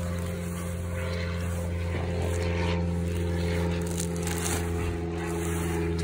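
A steady engine drone with a low hum runs throughout, its pitch unchanging, while a fabric grow bag of potatoes is handled and tipped over with a few faint rustles and scrapes.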